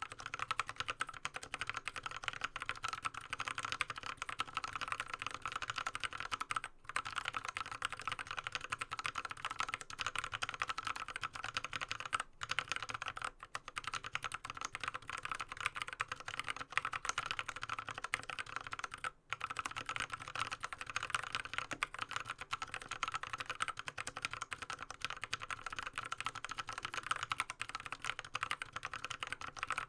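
Fast continuous typing on a Drop CTRL High-Profile mechanical keyboard with an aluminium plate and Kailh Speed Bronze clicky switches lubed with Krytox 105: a dense stream of key clicks, broken by three brief pauses.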